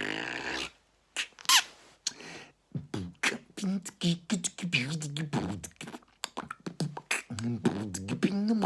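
A man beatboxing with his mouth: a held hummed tone that stops under a second in, a short falling whistle-like sweep, then fast percussive mouth clicks and hits over a low hummed bass line.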